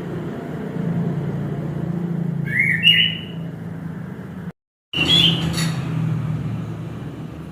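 Orange-headed thrush giving two short chirping phrases, about two and a half seconds in and again about five seconds in, over a steady low hum. The sound cuts out completely for a moment just before the second phrase.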